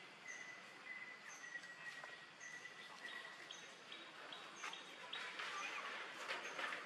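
Faint outdoor ambience: a short high chirp repeating about once a second over a thin steady high tone, with rustling that grows louder in the last second or two.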